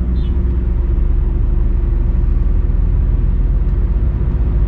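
Heavy truck heard from inside its cab while driving: a steady, even low drone of engine and road noise.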